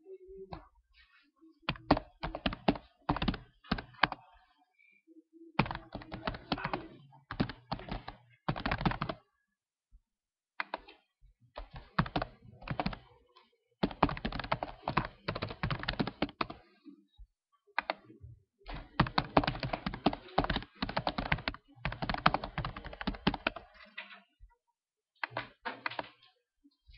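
Computer keyboard typing: bursts of rapid keystrokes lasting a second or a few seconds, with short pauses between them.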